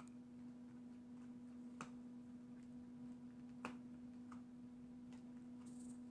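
A dog gnawing a rawhide bone: a few faint, sharp, irregular clicks of teeth on the hard rawhide, the loudest about two thirds of the way through, over a steady low electrical hum.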